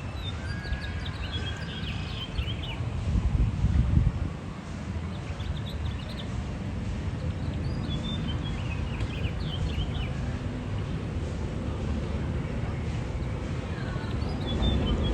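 Bird chirps in short scattered clusters over a steady low rumble, which swells briefly about three to four seconds in.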